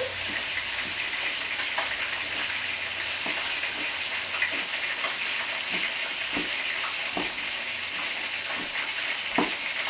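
Chicken tenders frying in a skillet of shallow oil, a steady sizzle, with a few soft knife taps on a cutting board as ham is chopped.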